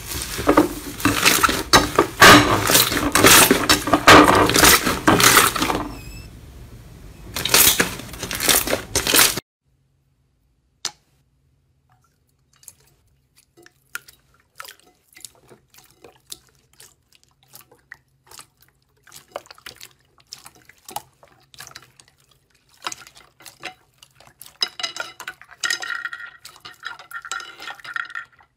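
Hands squeezing and kneading slime. A thick brown slime with red glitter pieces gives loud, dense crackling, which cuts off abruptly about nine seconds in. After that, a frozen clear blue slime pressed by hand gives faint, sparse pops and clicks that grow louder and busier near the end.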